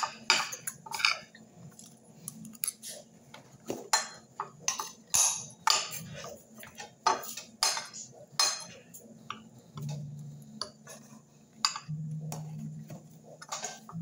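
Cutlery clinking and scraping on a plate as roast chicken is cut and picked at: a quick, irregular run of small clicks. A low steady hum joins twice near the end.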